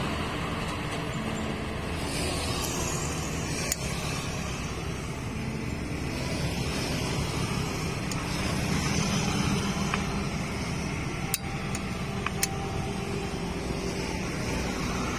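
Steady low engine rumble in the background, with a few sharp clicks.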